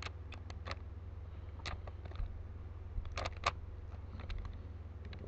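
Plastic Rubik's cube layers being twisted fast, giving irregular clusters of sharp clicks over a steady low hum.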